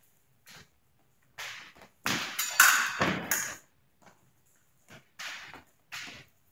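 Épée fencing footwork and blade contact: feet stamping and scuffing on the piste with the clatter of blades, in short separate sounds. The busiest, loudest run of stamps and clashes comes about two seconds in and lasts a second and a half, with a few lighter scuffs after it.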